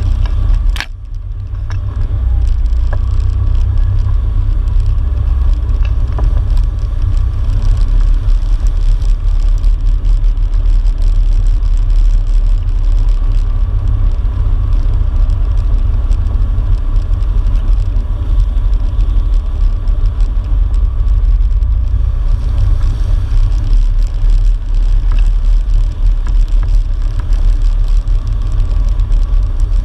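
Off-road vehicle engine running steadily as it rides a rough dirt trail, under a heavy low rumble. There is a sharp knock about a second in.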